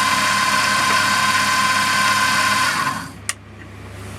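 Mini milling machine's spindle motor running steadily with a high whine, then switched off and going quiet just under three seconds in, followed by a single sharp click.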